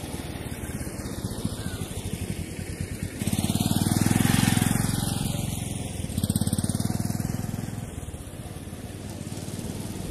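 A motorcycle engine runs as the bike rides past over grass. It gets suddenly louder about three seconds in, is loudest around four to five seconds in, and fades after about eight seconds.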